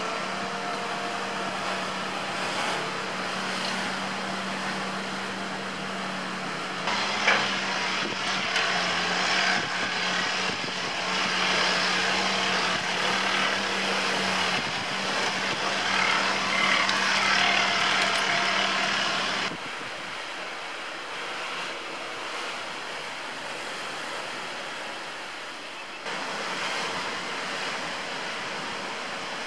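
Heavy excavator working, its engine running with a steady low tone and grows louder while the machine works; about two-thirds of the way in it cuts off abruptly to a quieter, even rush of outdoor noise.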